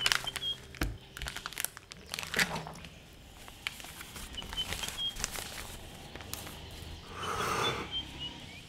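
Paper rustling and crinkling as sheets are handled and leafed through by hand, with many small clicks and a longer rustle near the end.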